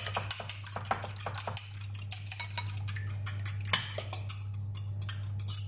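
A spoon beating raw eggs in a glass bowl: quick, irregular clinks of metal against glass, with one sharper knock about four seconds in.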